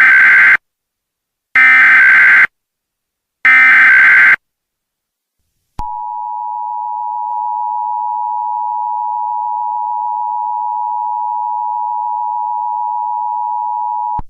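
Emergency Alert System opening tones. First come the SAME header data bursts: three short bursts of digital data tone about two seconds apart, the first already under way. After a short pause comes the two-tone attention signal, a steady dual tone held for about eight seconds that then cuts off, signalling that an emergency alert message follows.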